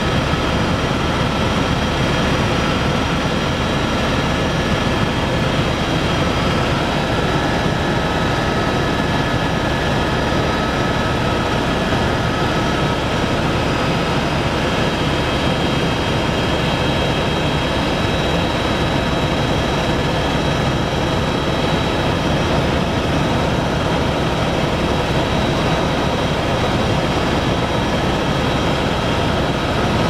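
Helicopter in steady cruise heard from inside the cabin: a constant drone of engine and rotor with steady high-pitched whine tones over it.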